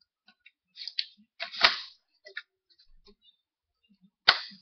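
Cyma CM023 airsoft MP5 being handled: several sharp clicks and knocks of its plastic and metal parts. The loudest come about one and a half seconds in and again just before the end.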